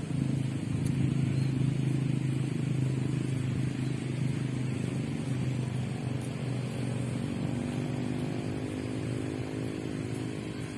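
Motor vehicle traffic: a steady low engine hum, with another engine passing in the second half, its pitch shifting as it goes by.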